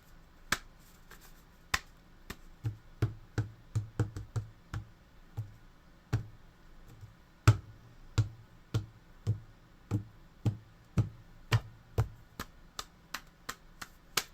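Hand-made percussion: sharp snaps and taps, many with a dull low thud under them, in a loose, uneven rhythm of about two strokes a second through the middle.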